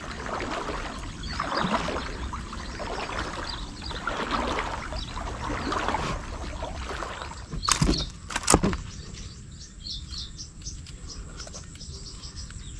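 Water splashing and swishing as a hooked snakehead is dragged through shallow, weedy water, followed about eight seconds in by two sharp knocks close together, the loudest sounds here. Birds chirp toward the end.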